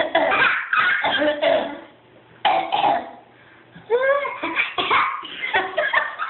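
Two people coughing back and forth at each other in short, repeated bursts, with voice-like sounds from about two-thirds of the way in.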